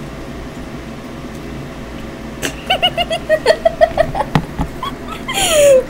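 A person's voice making a quick run of short, high 'ha'-like sounds, a knock, then a loud squeal that falls in pitch near the end.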